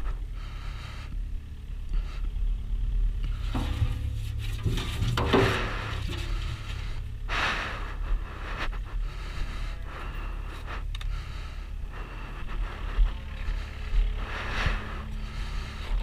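Wheel loader's diesel engine idling steadily, with scraping and shuffling as a calf is moved into its steel bucket, busiest about a third of the way in and again near the end.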